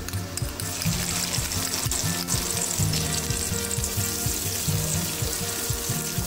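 Garlic and sliced red onion sizzling in hot oil in a wok, stirred with a wooden spatula, with scattered light clicks.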